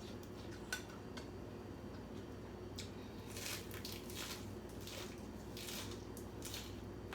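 Someone eating noodle soup: a few light clicks of utensils against the bowl, then a run of short slurps.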